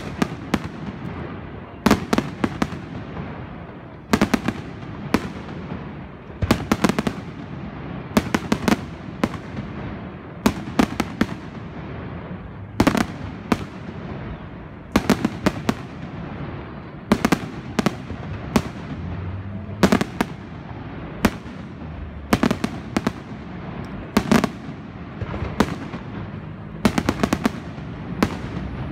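Fireworks display: sharp bangs of bursting shells, often in quick pairs or clusters, coming every second or two, each followed by a fading echo.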